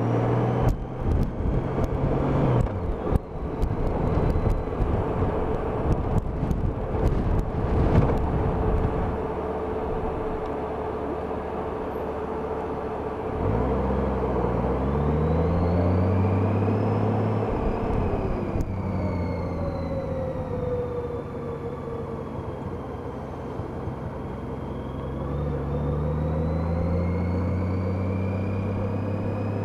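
Honda F6B's flat-six engine pulling away and accelerating, its pitch climbing, dropping at a shift about halfway through, then climbing again near the end. Heard through a helmet-mounted microphone, with heavy wind buffeting over the first third.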